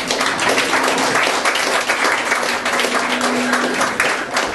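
Audience applauding: a dense, steady patter of hand clapping.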